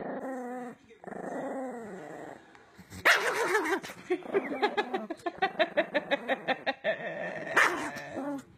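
Small long-haired Chihuahua growling and snarling, breaking into a fast string of short yaps, about five or six a second. One louder yap comes near the end.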